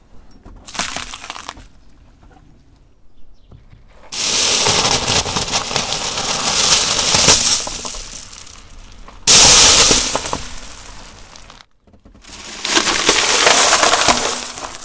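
A car tyre rolling over a plastic bag of glass marbles: the marbles clatter, clink and grind against each other and the pavement, with the bag crackling. This comes in three long noisy bouts, the loudest starting suddenly about nine seconds in, after a short burst about a second in.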